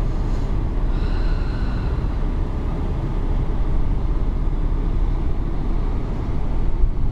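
Steady low rumble of a river cruise ship under way, heard on its open deck, with faint brief tones about a second in.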